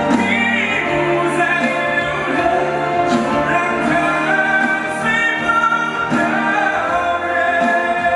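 A man singing into a microphone over instrumental accompaniment, holding long notes that bend in pitch.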